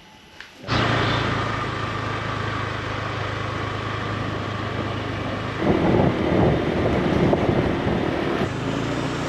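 Motorbike engine running steadily under wind noise while riding, starting a little under a second in and growing louder for a few seconds from about six seconds in.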